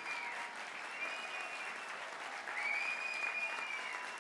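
Audience standing and applauding steadily, a dense roomful of clapping, with a few high drawn-out tones that bend up and down above the clapping.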